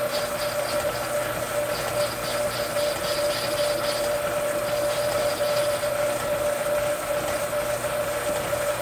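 Metal lathe running through a facing cut: a steady machine hum with a high squeal from the tool on the metal that comes and goes.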